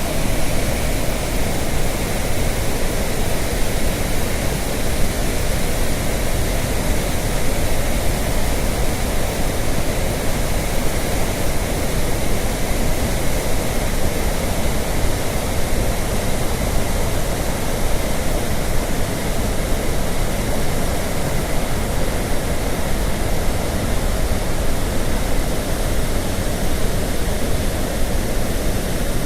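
Chitrakote Falls, a large waterfall on the Indravati River: a loud, steady rush of falling water, unbroken and even throughout.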